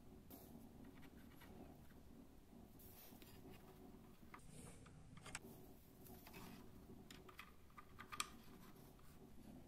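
Faint small clicks and taps of fingers fitting a small ring onto the headlight of a wooden model car, with one sharper click about eight seconds in, over a low steady hum.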